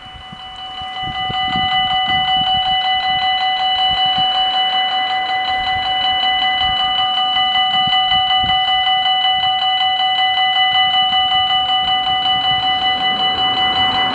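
Level crossing warning bells ringing steadily, signalling that a train is approaching and the barriers are about to close. The ringing builds to full loudness about a second in.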